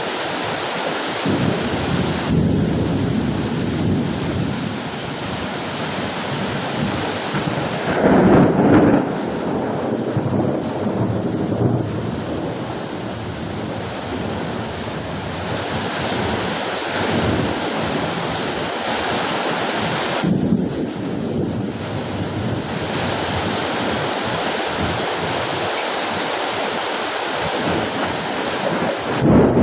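Heavy rain in a thunderstorm with wind buffeting the microphone; a louder rumble of thunder comes about eight seconds in and another right at the end.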